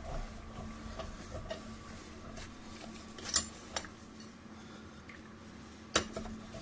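Scattered sharp metallic clicks and knocks of hand tools, two of them louder (about halfway through and near the end), over a faint steady hum, as the wheels are being taken off a jacked-up car.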